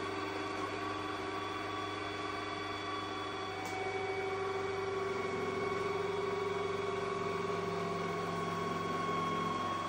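Ecovacs Deebot robot vacuum's motors humming with a steady whine of several held tones as it reverses up into its base station. About four seconds in the tone shifts and gets a little louder.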